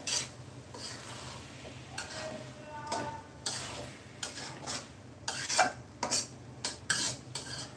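Metal spatula stirring and scraping rice, lentils and potato around a wok, in irregular scrapes and clinks against the pan, with a faint sizzle of frying. The khichuri is being fried dry in its spices (the bhuna or koshano stage) before hot water goes in.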